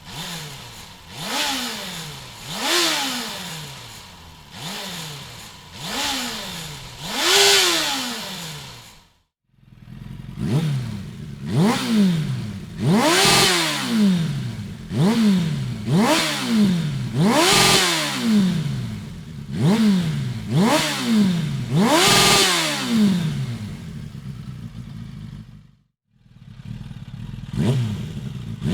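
1997 Suzuki GSF 600 S Bandit's inline-four engine breathing through an aftermarket Dominator exhaust, blipped again and again from idle. Each blip rises quickly in pitch and falls back to idle. The sound drops out briefly twice, where the recording cuts between takes.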